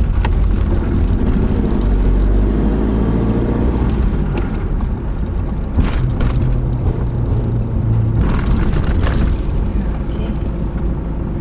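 Camper van driving slowly at low revs: engine and road rumble as it rolls up the steel loading ramp onto a car ferry's vehicle deck, with a few sharp knocks about six seconds in and again about eight to nine seconds in.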